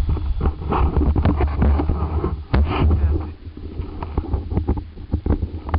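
Wind buffeting the microphone as a steady low rumble, with scattered clicks and knocks from the camera being handled and moved.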